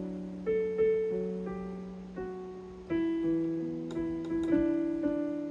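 Casio CT-S1 digital keyboard being played: single notes and chords struck one after another, about every half second to a second, each ringing and fading away.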